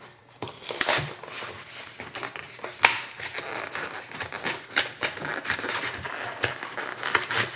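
Cardboard box and its white paper lining being ripped and peeled open by hand: irregular tearing, crinkling and rustling, with one sharper snap about three seconds in.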